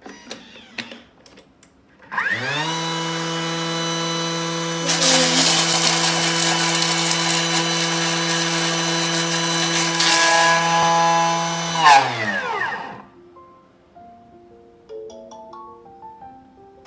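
Thermomix food processor's motor spinning up to top speed with a quick rising whine, then running steady. Pandan leaves dropped through the lid onto the spinning blades add a loud chopping rattle for about five seconds in the middle, before the motor winds down with a falling whine about twelve seconds in.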